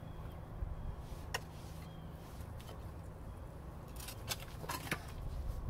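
A steel pry bar working a large boulder loose from packed dirt: a few short clinks and scrapes of metal on rock, bunched together near the end, over a low steady rumble.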